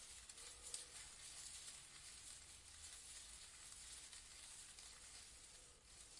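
Faint rustling of leaves in a breeze: a soft, crackling hiss with a few brief crackles, the clearest just under a second in.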